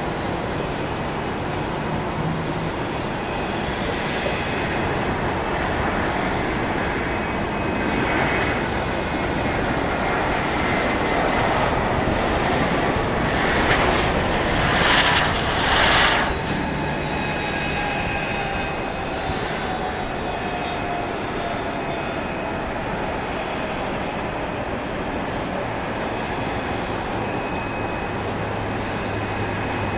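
Boeing 757-232 airliner rolling out after landing: the steady rush of its Pratt & Whitney PW2037 turbofans swells to its loudest about halfway through. A thin engine whine then slides down in pitch as the jet slows and passes.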